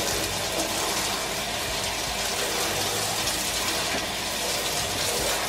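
Shower spray running steadily, water pouring over a wet dog and splashing onto a tiled shower floor.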